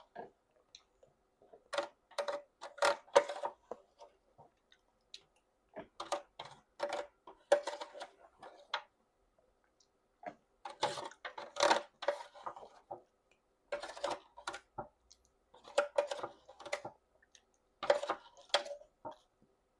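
Close-up mouth sounds of someone eating jajangmyeon noodles: wet chewing and lip smacking in clusters of quick clicks every second or two, with short pauses between.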